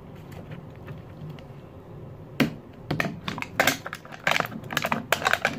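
Plastic wrapping on an LOL Surprise toy ball crinkling and crackling as it is peeled off by hand: a quick, irregular run of sharp crackles starting a little before halfway through.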